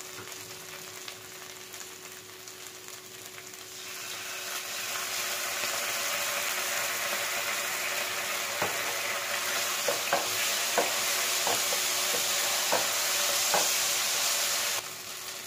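Chopped vegetables frying in a non-stick pan, the sizzle growing much louder about four seconds in as red chilli sauce hits the hot oil. In the second half a wooden spatula knocks against the pan a few times, and the sizzle cuts off suddenly just before the end.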